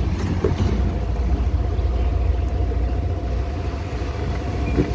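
Suzuki Avenis 125 scooter's single-cylinder engine running as it rolls slowly over a rough dirt and stone track, under a steady low rumble from the ride.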